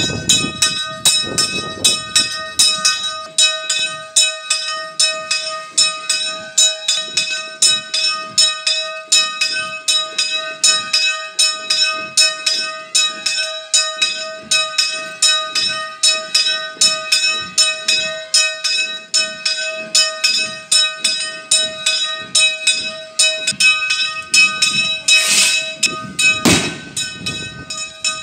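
A single church bell swung full circle by a hand crank, its clapper striking in a steady, even rhythm over a continuous ringing tone with several overtones. A sharp bang stands out near the end.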